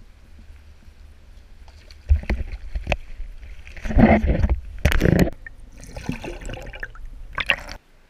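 Water splashing in several loud irregular bursts in shallow river water as a caught steelhead is handled at the bank, over a steady low rumble; it cuts off suddenly near the end.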